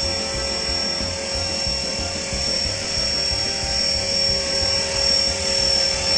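E-Flite Blade 400 electric RC helicopter hovering steadily: a high, even whine from its electric motor and gears over the low beat of the rotor blades.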